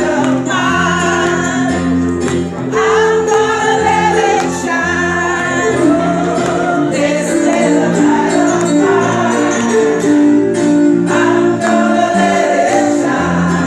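Gospel-style music with singing over a steady bass line and a regular beat with jingling percussion.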